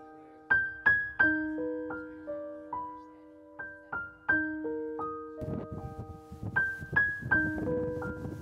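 Slow solo piano music: single struck notes ringing and fading, a few a second, with chords underneath.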